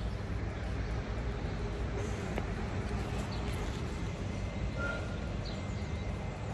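Steady low outdoor background rumble with a few faint, short high chirps about halfway through.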